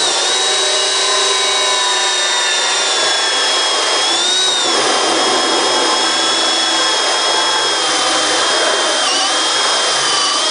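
Makita cordless hammer drill running at fast speed, not on the hammer setting, driving a conventional multi-tooth hole saw through a board: a steady high motor whine over the rasp of the teeth cutting. The pitch dips briefly twice as the saw bites under load.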